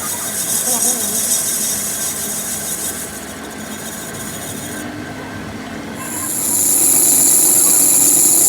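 Workshop machining of a steel spindle: a loud, high-pitched screeching hiss of metal being cut or ground. It eases in the middle, cuts out briefly, and comes back louder and steadier about six seconds in.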